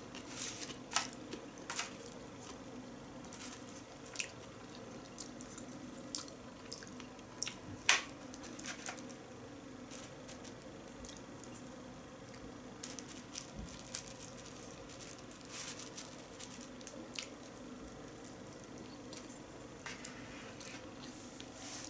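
Close-up eating sounds: wet chewing and mouth smacks, with scattered sharp clicks of wooden chopsticks picking food from a plastic tray, over a low steady hum.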